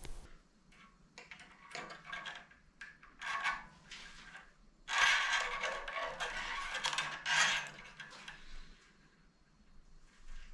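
Handling sounds of a bass guitar being checked over on a workbench: scattered light taps, clicks and scrapes, with a longer stretch of rustling and scraping from about five to eight and a half seconds in.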